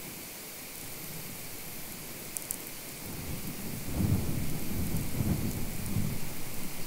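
Steady static-like hiss of an electromagnetic field picked up by a Lom Priezor, with a few faint high ticks about two seconds in. A low, uneven rumble swells in about three seconds in and stays loud to the end.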